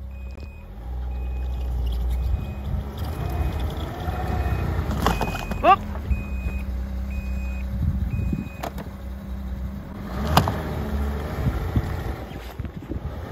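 Ski-Doo Skandic wide-track snowmobile engine running under load as the sled churns through deep snow. An electronic reverse-warning beep repeats about once a second until a little under nine seconds in.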